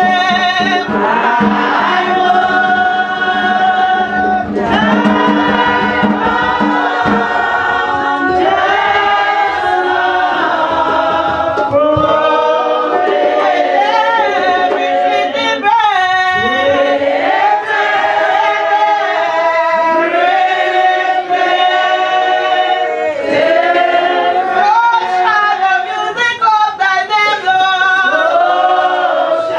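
Church congregation singing together in a choir of many voices, largely unaccompanied.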